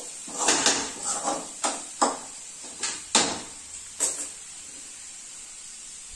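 Spoon scraping and stirring a dry banana-flower stir-fry in a steel pan, a run of short scrapes that stops about four seconds in.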